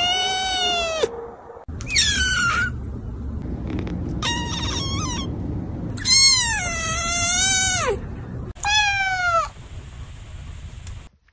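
Kittens meowing: about five separate high-pitched meows, each falling in pitch at its end. The longest, about six seconds in, lasts nearly two seconds.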